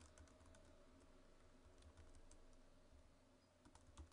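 Faint computer keyboard typing: a string of soft keystrokes, with one sharper click near the end.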